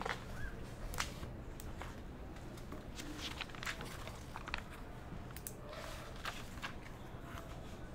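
Paper pages being handled and turned, a scattering of short, crisp rustles and flicks over a low, steady room hum.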